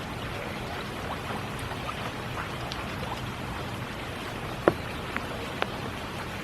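Steady spring rainfall, with a few louder single drops tapping close by, the loudest about three-quarters of the way through.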